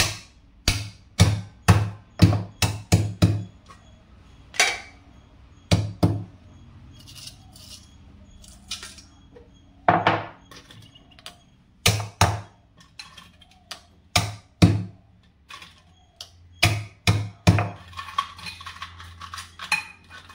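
A pestle pounding crabs in a stone mortar (ural): heavy, dull thuds in runs of several at about two a second, with short pauses between the runs.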